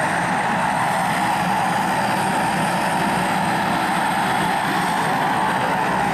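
Propeller aircraft engine running steadily: a constant, even drone.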